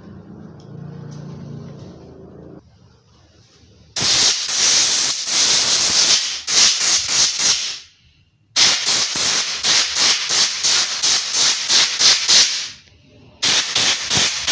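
Compressed-air blow gun hissing in loud blasts as it cleans a chainsaw air filter. The air starts about four seconds in, first as a long blast and then as quick pulses of about three a second, with brief breaks in between.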